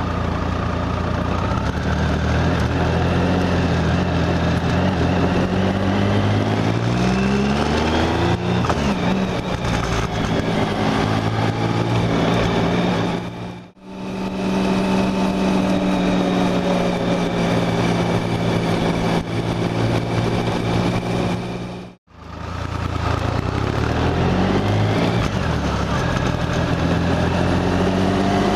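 Motorcycle engine heard from a bike-mounted camera, running under way and rising in pitch as it accelerates through the gears, with wind and road noise. The sound drops out briefly twice.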